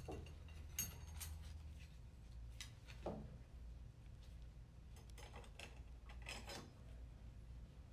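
Steel and friction clutch plates being fitted into the forward clutch drum of a Nissan RE0F09B/JF010E CVT: faint scattered clinks and scraping as the plates slide down the drum splines, over a low steady hum.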